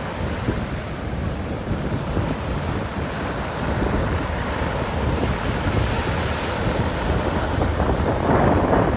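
Strong wind buffeting the microphone over choppy water and small waves breaking at the shoreline, with a louder rush of surf near the end.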